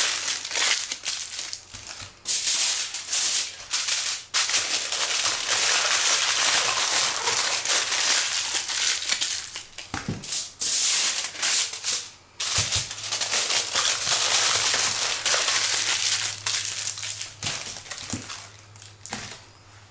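Aluminium foil being crumpled and folded by hand around potatoes: dense crinkling that runs in spells with a few short pauses.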